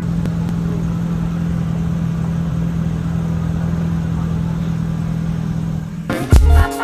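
Car engine and road noise: a steady low hum. Music with a beat cuts in near the end.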